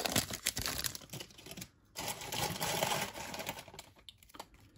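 Baseball trading cards from a 2024 Topps pack being pulled from the torn foil wrapper and flicked through by hand. A quick run of light clicks gives way to a rustle of card stock sliding against card stock, then it goes faint near the end.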